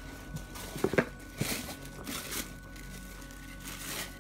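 Tissue paper packing in a shoebox crinkling and rustling in several short bursts as it is handled, over steady background music.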